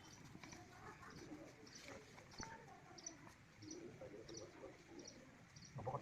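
Faint bird calls: a regular run of short, high chirps, about two a second, over soft low cooing.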